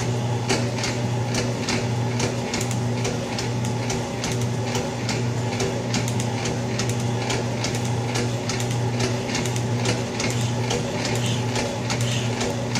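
Old Atlas metal shaper running a finishing cut, taking 12 thousandths off a cast steam-engine box bed. A steady motor hum runs under an even rhythm of sharp clicks, about two to three a second, as the ram strokes back and forth.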